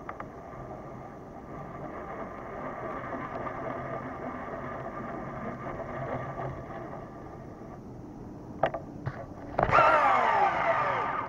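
Abu Garcia Ambassadeur 1500C baitcasting reel being wound in with a steady gear whir. Near the end come a couple of clicks and then a cast: the spool spins up with a loud whine that falls in pitch as it slows.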